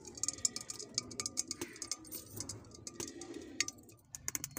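Ghee sizzling and crackling as it melts in a hot aluminium pot over a wood-fired stove: a steady hiss with many irregular sharp crackles.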